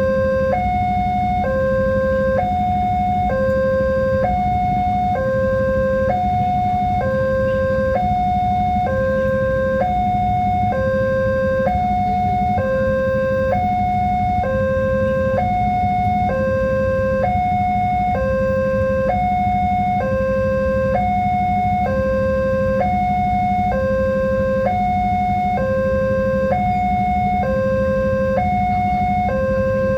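Railway level-crossing warning alarm sounding a steady two-tone electronic signal, alternating low and high pitches about once a second, the signal that a train is approaching and the barrier is closed. A constant low hum and rumble lies underneath.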